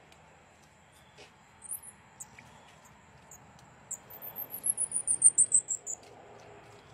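Very high-pitched chirps from a striped squirrel: a few single chirps, then, about four seconds in, a fast run of about six chirps a second that falls steadily in pitch for about two seconds.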